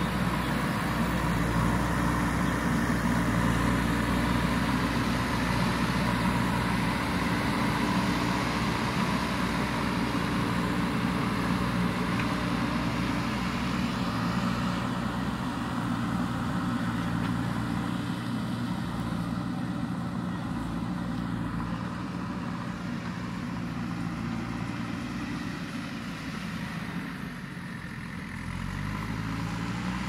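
JCB backhoe loader's diesel engine running steadily under load as the machine pushes soil with its front bucket, growing gradually fainter as it moves off. Near the end the engine revs up, rising in pitch.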